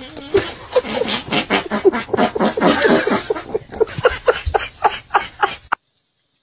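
A person laughing hard, a long run of short, pitched "ha" bursts about four a second that cuts off suddenly near the end.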